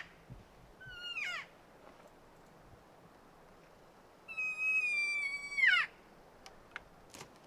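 Cow elk calls: a short chirp falling in pitch about a second in, then a longer high mew held steady for about a second and a half before it drops away.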